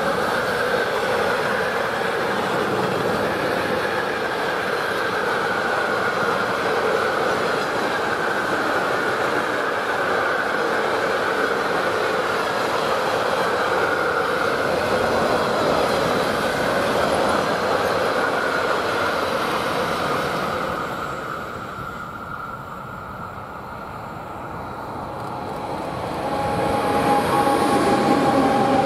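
Freight train of double-deck car-carrier wagons rolling past, steel wheels rumbling on the rails with a high squeal. The sound eases off for a few seconds, then swells again near the end, with steady tones as a Siemens Vectron electric locomotive passes close by.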